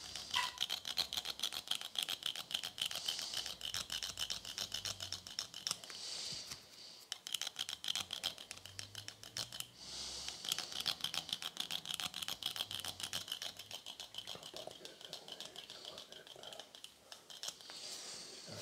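Hand-squeezed manual hair clipper cutting beard stubble on the jaw and neck: a fast, continuous run of small metallic clicks, with a short break about seven seconds in.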